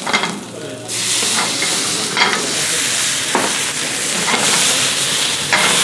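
Mushrooms frying in a hot pan over a gas flame, sizzling loudly from about a second in, with a few short knocks of the pan.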